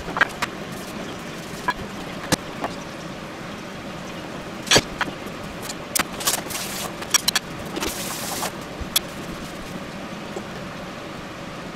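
Metal serving tongs and ceramic plates clinking and clacking as they are set down on the counter and trays, in scattered taps with one louder clack about five seconds in. Two short rustling hisses come between about six and nine seconds, over a steady background hum.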